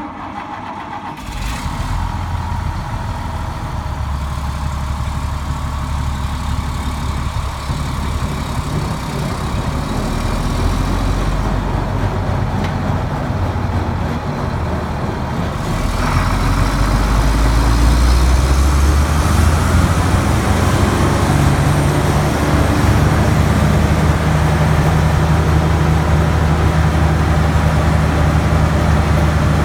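Caterpillar turbo diesel engine of a Morbark Hurricane 18 drum chipper running steadily at low speed, then, about sixteen seconds in, rising in pitch over a few seconds and holding a higher, louder steady speed.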